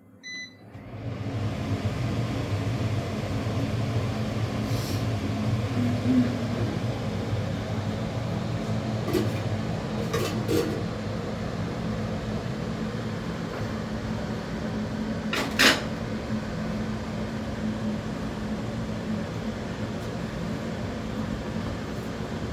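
A kitchen chimney (range hood) is switched on with a short electronic beep, and its extractor fan then runs steadily with a low hum. A few light clicks and knocks of utensils sound over it, the loudest about 15 seconds in.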